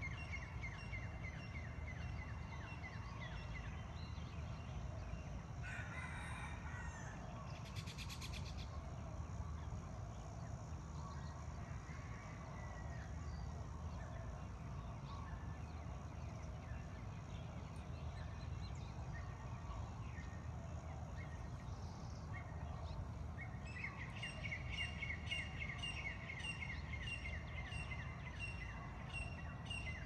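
Hawaiian morning bird chorus: several birds singing, with fast runs of repeated high notes at the start and again through the last six seconds, and a rooster crowing among them, over a steady low rumble.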